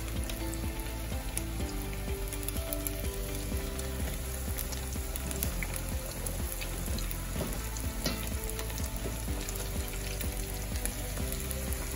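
Cornstarch-coated salmon skin deep-frying in a pot of hot oil: a steady sizzle full of small crackles as the skin crisps.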